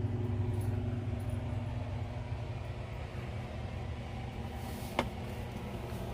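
Steady low electrical hum from the air conditioner running off the power inverter, with one sharp click about five seconds in.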